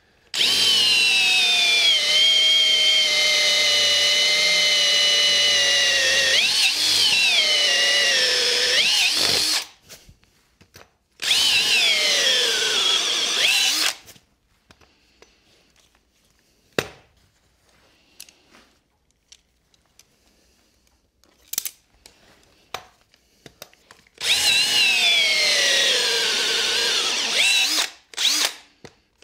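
Cordless drill boring a hole into a block of walnut, run in three long bursts with pauses between and a couple of short blips near the end. Its pitch sags as the bit bites deeper and falls away when each run stops.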